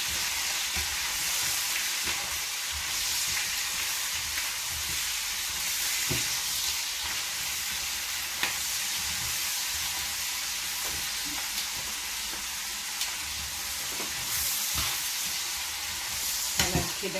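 Lamb ribs with onions and bell peppers sizzling as they fry in a pan, stirred and turned with tongs that click against the pan now and then.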